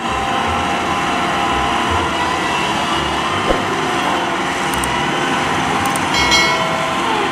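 Caterpillar single-drum soil compactor (road roller) running, its diesel engine and rolling drum making a steady heavy-machinery drone.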